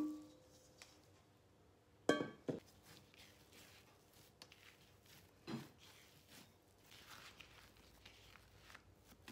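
Stainless steel mixing bowl knocked and set down on a counter, ringing briefly, once at the start and again about two seconds in with a second clank. After a dull thump, bread dough being kneaded by hand on a silicone mat gives soft patting and rustling.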